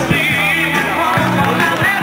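Rock music with a singer over a steady bass line.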